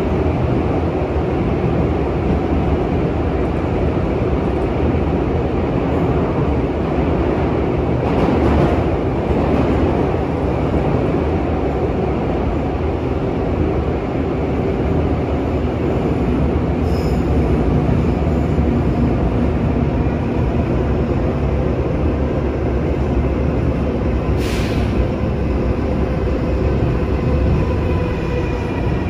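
Seoul Subway Line 3 electric train running, heard from inside the passenger car: a loud, steady rumble of wheels on rails with a faint electric motor whine. Brief sharp clicks twice, about 8 and 24 seconds in.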